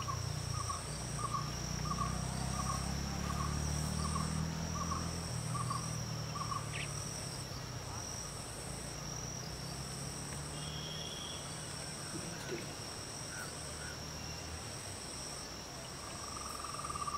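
Insects shrilling steadily at a high pitch, with a second insect trilling above in on-off pulses about once a second. Through the first six seconds a lower chirp repeats a little faster than once a second. A low hum is present at the start and fades away by about fourteen seconds.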